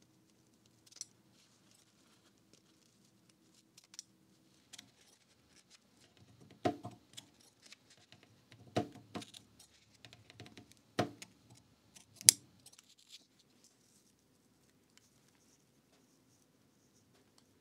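Small clicks, taps and light paper rustling from hand work at a bookbinding bench during paper repair of book pages. About five sharper clicks or snips come in the middle stretch, the last the loudest, and little is heard after it.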